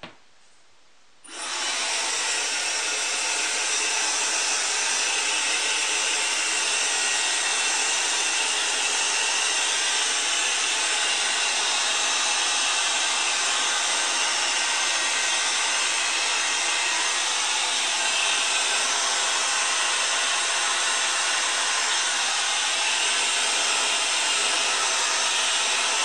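Dyson Supersonic hair dryer switching on about a second in, then running steadily as a loud, even rush of air.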